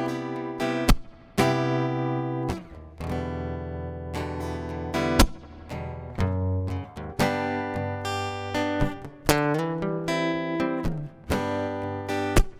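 Acoustic guitar playing an instrumental break between verses of a song: strummed chords with sharp attacks, and a short sliding run of notes about two-thirds of the way through.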